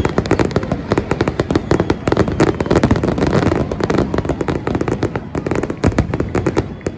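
Fireworks going off in a rapid barrage: many overlapping bangs and pops, densest and loudest in the middle few seconds.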